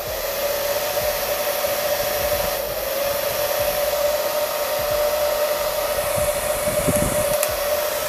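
Hair dryer running steadily with a constant whine, blowing hot air on a smartphone's glass back to soften the glue; it cuts off at the very end.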